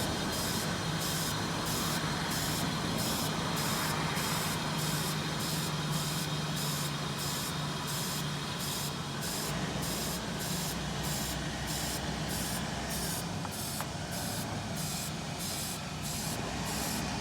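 Aerosol can of brake cleaner hissing steadily into the Chevy Express van's engine intake, with the engine running underneath on the brake cleaner in place of fuel from the failed fuel pump.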